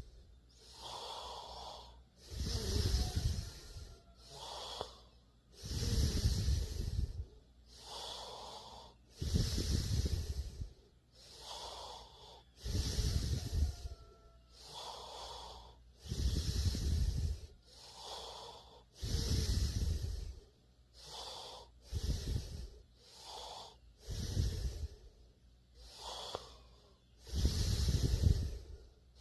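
A sleeping person snoring in a steady rhythm. A loud, low snore comes about every three seconds, with a softer, airy breath between each one.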